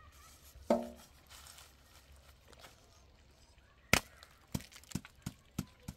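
A brief pitched call about a second in, then a run of sharp knocks, about six in two seconds, the first one the loudest.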